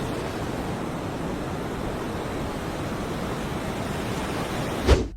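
Large ocean waves breaking: a steady wash of heavy surf mixed with wind, with a sudden loud thump near the end.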